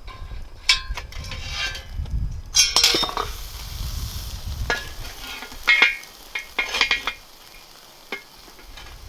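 Metal utensil clinking and scraping against a metal cooking pan as food is stirred, several sharp ringing clinks with the loudest about three seconds in and again around six seconds.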